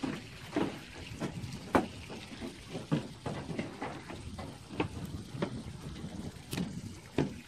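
Footsteps along a dock, each a short soft knock, coming nearly two a second over a low steady hiss.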